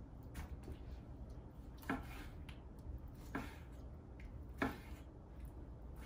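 A long knife chopping smoked brisket point into cubes on a wooden cutting board. The blade knocks sharply against the board three times, about a second and a half apart, with softer taps and scrapes in between.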